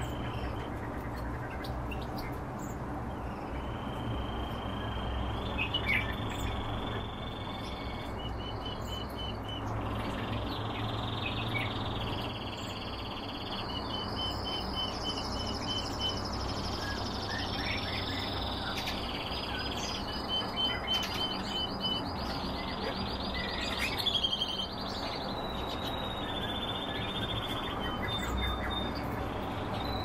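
Small caged finches singing continuously, a song of long steady whistled notes and rapid rolled trills of repeated notes, some pitched higher, over a faint low hum during the first half.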